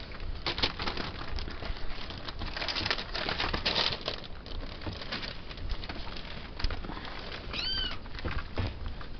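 Bengal-cross-Persian kittens scrambling over newspaper and a sisal scratching post: irregular paper rustling and crinkling with small scratches and taps. One short, high-pitched kitten mew, rising and falling, comes near the end.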